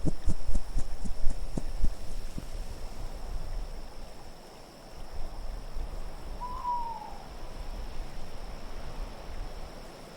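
Wind gusting hard for the first two seconds, then easing to a lower steady rush. About six and a half seconds in, a single short owl hoot sounds, falling slightly in pitch.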